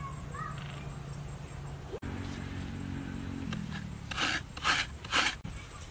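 Three short rasping scrapes about half a second apart, from grated coconut being worked in a stainless steel bowl. A low steady hum runs under the first part and stops before the scrapes.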